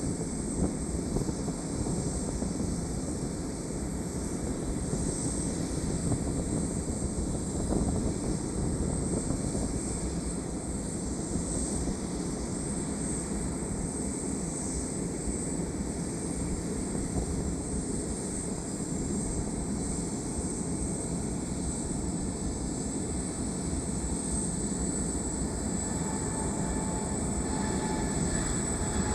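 Jet airliner engines, a steady rumble with a thin high whine over it.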